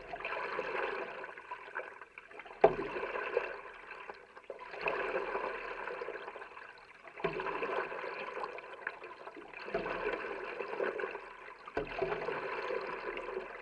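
Stand-up paddle strokes: the blade catching and pulling through calm water about every two and a half seconds, six strokes, each a short splash followed by swishing, trickling water.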